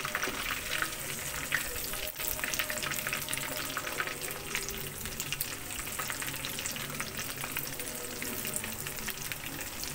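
Fish pieces deep-frying in hot oil in an iron wok: a steady sizzle with many small crackling pops.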